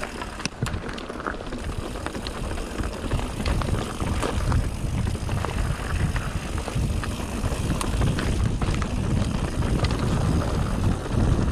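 Mountain bike being ridden on a dirt trail: a steady, uneven low rumble of wind and tyre noise on the camera microphone, with many scattered clicks and rattles.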